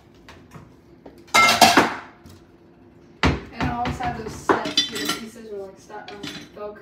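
Metal kitchenware clattering at a counter: a loud clatter with a ringing clink about a second and a half in, then a sharp knock about three seconds in, followed by smaller clinks and handling noises.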